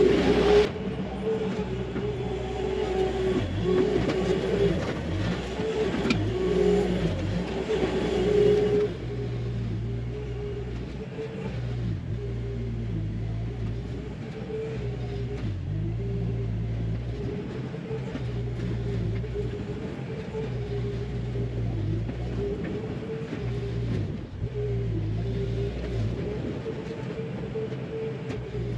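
Bobcat T300 compact track loader's diesel engine running steadily while it grades dirt with a grading attachment. Louder for the first nine seconds or so as it passes close, then steadier and farther off.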